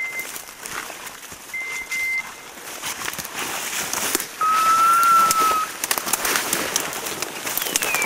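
Brush rustling and twigs snapping as a hunter pushes through dense scrub. Two short, steady high beeps come in the first two seconds. A loud, long whistled note about halfway through rises slightly and falls back, and a short falling chirp comes near the end.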